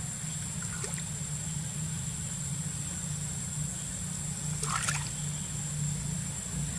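Monkeys' hands splashing and paddling in a shallow pool, with one short splash about five seconds in. Under it runs a steady low engine hum, like a vehicle idling, and a steady high whine.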